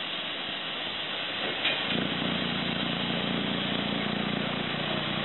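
Class 122 'Bubble Car' diesel railcar engine starting about two seconds in and settling into a steady low-pitched idle, over a steady hiss.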